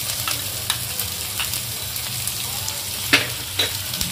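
Chopped onions sizzling in hot ghee in a metal kadhai as they are spooned in, a steady frying hiss. Sharp clicks of metal utensils against the pan, the loudest two a little after three seconds in.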